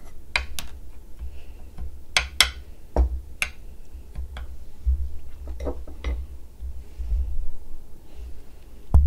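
Metal spoon clinking against a serving plate and crab shells while chili sauce is spooned over raw crabs: scattered sharp clinks and taps, most of them in the first few seconds, over a low rumble.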